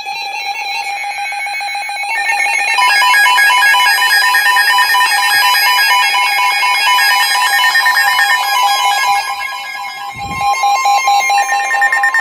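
Emergency Alert System tones from two alerts sounding at once: a steady two-tone attention signal under rapid, pulsing SAME header data bursts. A low thump comes about ten seconds in.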